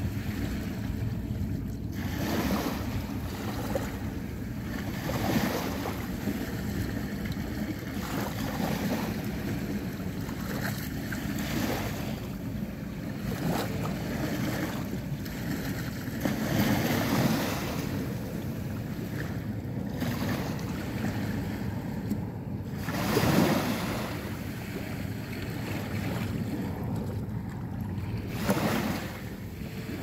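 Small sea waves washing in at the water's edge, a soft surge every few seconds with the biggest about three-quarters of the way through, over a low steady rumble of wind on the microphone.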